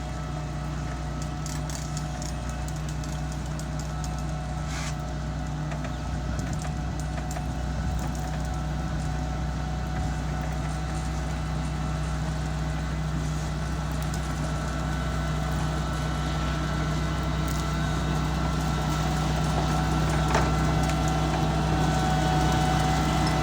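Motor grader's diesel engine running steadily with a low hum, slowly growing louder.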